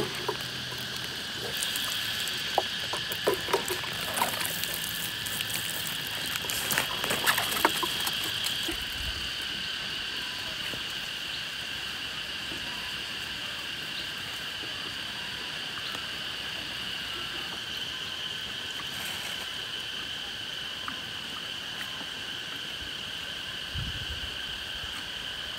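Steady high-pitched drone of insects, with scattered clicks and rustling over the first several seconds.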